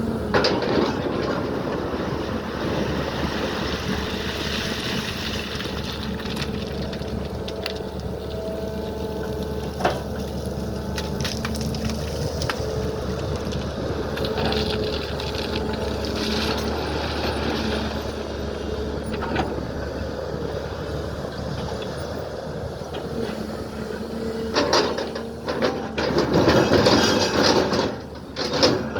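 A SANY hydraulic excavator's diesel engine runs steadily while digging, with a hum whose pitch shifts now and then and a few sharp clicks. Near the end, louder noisy bursts come in.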